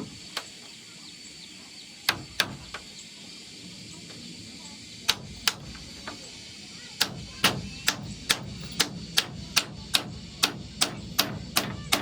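Hammer blows: a few scattered strikes, then from about seven seconds in a steady run of about three blows a second.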